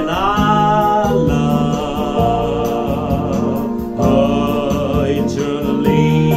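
Electronic keyboard playing sustained chords, with a man singing long held notes over it.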